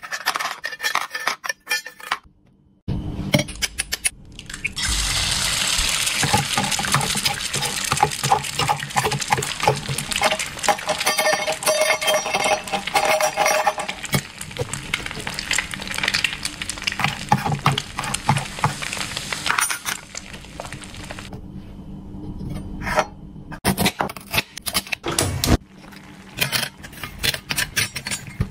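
Small metal toy pots and pans clinking and scraping as wooden toy food pieces are tipped in and stirred with a wooden spatula and chopsticks. A steady hiss runs through the middle, stopping about three-quarters of the way through.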